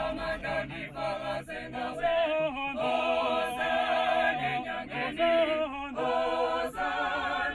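Mixed-voice a cappella choir singing in harmony, in held chords broken into phrases by short pauses.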